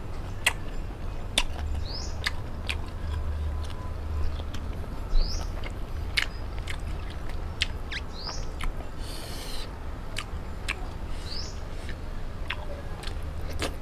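A bird repeats a short rising chirp four times, a few seconds apart, over scattered sharp clicks of chewing and a brief hiss about nine seconds in.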